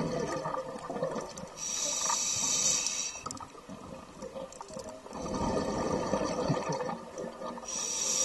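Scuba diver breathing through a regulator underwater: a hissing inhale with a thin whistle, a long burst of bubbling exhaled air, then another hissing inhale near the end.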